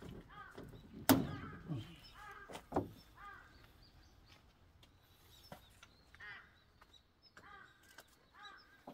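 Birds calling repeatedly, short crow-like caws, while a sharp knock sounds about a second in and a smaller one near three seconds, from the hose being handled against the sprayer's metal deck.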